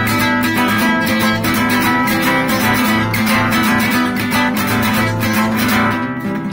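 Acoustic guitar strummed in a fast, steady rhythm, playing a C–F–G chord progression; the strumming lightens a little near the end.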